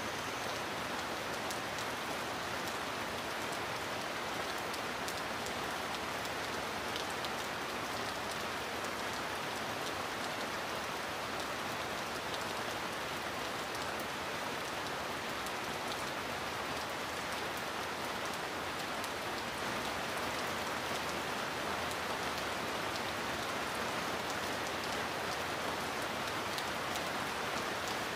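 Heavy rain falling steadily on a metal roof: a dense even hiss with individual drops ticking sharply here and there. No thunder is heard.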